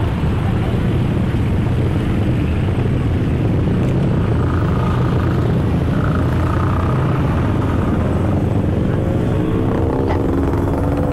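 An engine running at a steady pace, a constant low drone.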